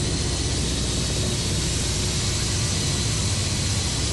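Ka-52 attack helicopter heard from inside the cockpit in flight: the steady rush of its turbine engines and coaxial rotors, with a constant low hum underneath.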